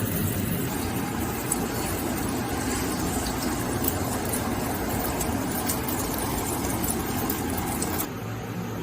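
Pickled cabbage and eggs stir-frying in a wok: steady sizzling with scattered crackles over a steady motor hum, dropping off abruptly near the end.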